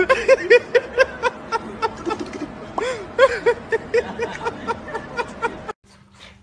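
A person laughing in quick, pitched bursts, several a second, which stop abruptly a little before the end, leaving only a faint steady hum.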